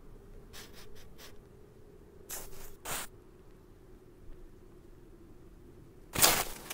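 Cartoon sound effects of a cat at a cat flap: a few short, soft rustling sounds, then a sudden louder clatter about six seconds in as the cat pushes its head against the flap.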